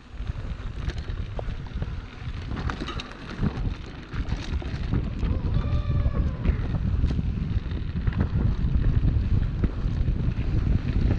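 Wind buffeting the microphone: a dense low rumble that grows louder about four seconds in. Scattered clicks and knocks run through it, and a short arching tone sounds near the middle.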